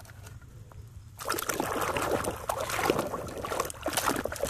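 A hand swishing and splashing in a tub of foamy soapy water, washing a plastic toy. It starts about a second in, after a quiet moment, and goes on as an irregular, bubbly splashing.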